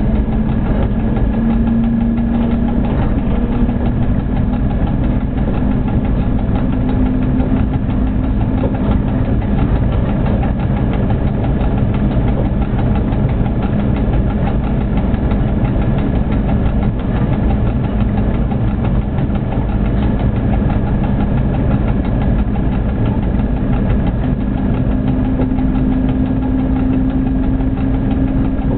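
A freight locomotive running along the line, heard from inside the driver's cab: a steady loud rumble and hiss with a drive hum. The hum rises slightly in pitch a couple of times as the train's speed changes.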